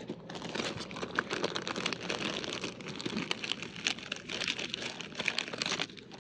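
Packaging crinkling as it is handled: a dense run of irregular crackles and rustles.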